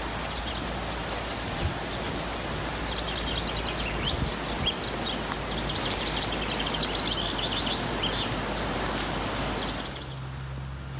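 Outdoor ambience: a steady rushing background noise with a songbird singing repeated rapid, trilling phrases from about a second in until about eight seconds. Near the end the rushing drops away and a low steady hum takes over.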